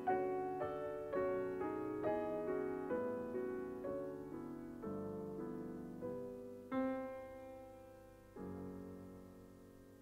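Soft solo piano music: a run of notes that slows down and ends on a held chord about eight seconds in, which slowly fades.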